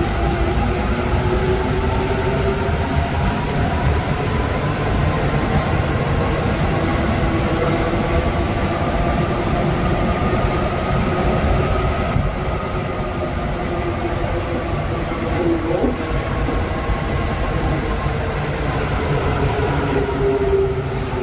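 MP05 rubber-tyred metro train running through a tunnel, heard from the front of the train: a steady rumble with a motor whine that slowly rises in pitch, then falls from about halfway through as the train slows toward a station.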